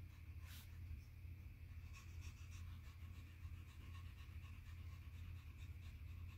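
Faint quick panting from a tabby cat, about four breaths a second, panting like a dog, over a low steady hum.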